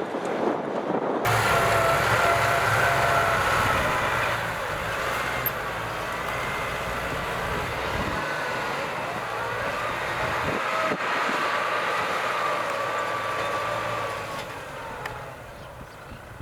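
Kubota M6040SU tractor's diesel engine running as it works a field, a steady low hum with a whine over it. The sound changes abruptly about a second in and fades near the end.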